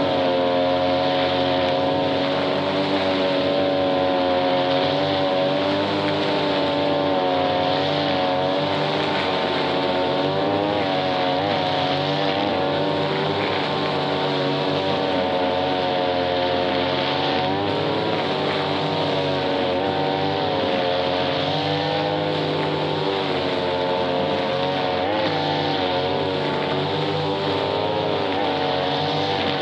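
Grass-cutting machine's small engine running steadily at high speed, its pitch wavering slightly up and down.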